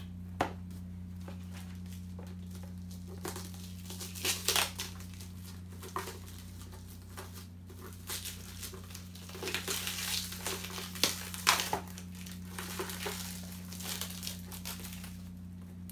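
Clear plastic wrapping crinkling and tearing as it is pulled off a cardboard product box by hand, in irregular bursts that are busiest and loudest a little past halfway. A steady low hum runs underneath.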